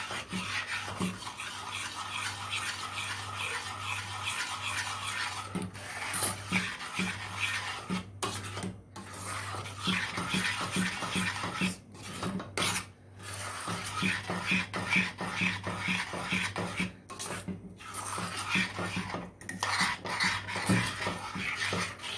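A spoon scraping around the inside of a cooking pot in repeated stirring strokes, with a few short breaks, as a thick flour-and-ghee roux with blended meat-and-vegetable broth is stirred until it comes to the boil.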